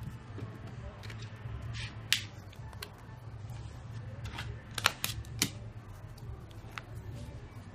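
Origami paper being handled and folded by hand: faint rustling with a few sharp paper clicks and taps, the loudest about two seconds in and a quick cluster around five seconds in, over a steady low hum.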